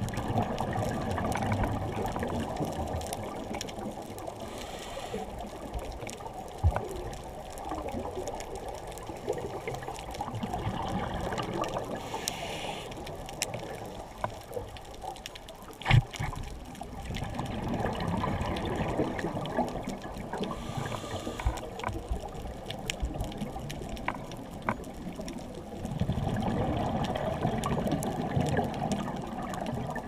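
Scuba diver's regulator breathing heard underwater through a GoPro housing: bubbly rushing bursts of exhaled air lasting a few seconds, coming about every eight seconds. A sharp knock sounds about halfway through.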